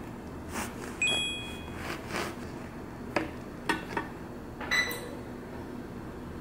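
A serrated bread knife sawing through a sesame bagel on a wooden cutting board, with a bright ringing ping about a second in. Then sharp knocks as the knife and bagel halves are set down on the board, and a second short ringing clink near the end.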